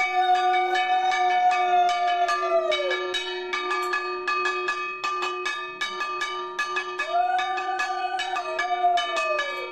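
A brass puja hand bell rung rapidly and continuously, with a steady ringing. Twice a conch shell is blown in a long note that swells, holds and falls away.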